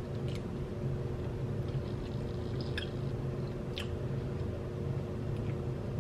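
A person chewing a mouthful of chicken sandwich close to the microphone, with a few sharp wet mouth clicks, over a steady low hum.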